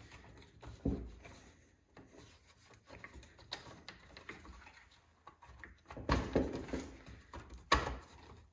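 Handling noise of parts being pressed and worked into place by hand on a cutoff saw: scattered clicks and rubbing of rubber and plastic, a knock about a second in, and louder rubbing and knocking from about six seconds in.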